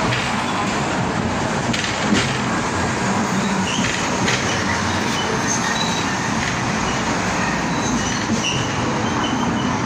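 Hong Kong double-decker tram running along its street track, heard from inside the upper deck: a steady rumble and rattle of the car body and wheels on the rails, with a few sharp clicks about two and four seconds in.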